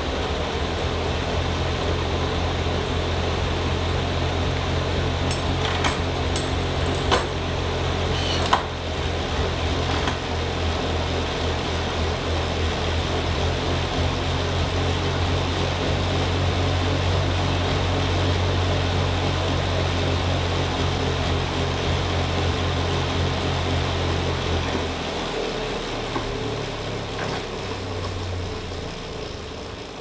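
Tacx Flux S direct-drive smart trainer with a bike pedalled up toward 30 mph: a steady hum from the spinning flywheel with a whirring hiss, and a few clicks in the first several seconds. The hum falls away and the sound fades about five seconds before the end.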